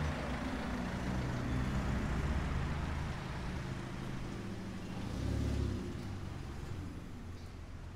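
Motor vehicle engine running and passing, fading as it moves away, with a brief swell about five seconds in.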